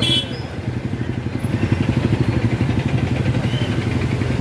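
Motor scooter engine running steadily while riding, a continuous low pulsing rumble, with a brief high chirp right at the start.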